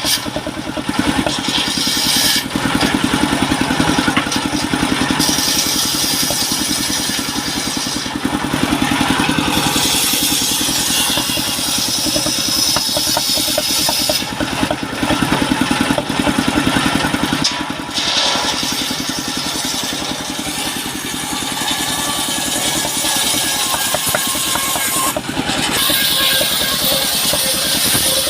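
Engine driving a mobile circular-saw sawmill, running steadily, with a high hiss that comes and goes every few seconds.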